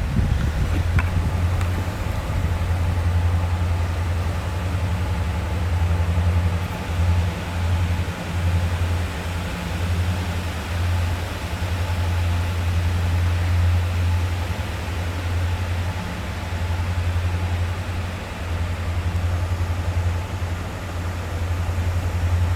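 Engine running steadily with a low hum, over an even hiss of rain.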